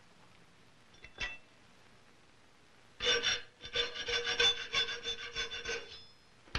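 Hand file rasping across the metal edge of a rifle butt plate clamped in a bench vise: a quick run of back-and-forth strokes for about three seconds, with the metal ringing under them. A single light tap comes about a second in.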